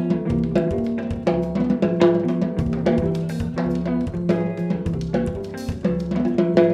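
Instrumental samba-jazz band playing live: a drum kit with snare and bass drum keeps a steady beat under a bass line and held chords.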